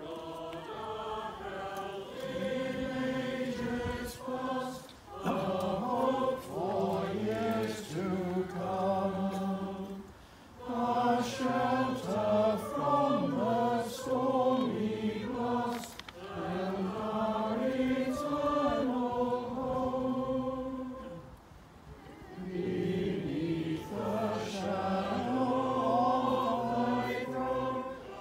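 Robed church choir of mixed voices singing in phrases, with brief breaks between them.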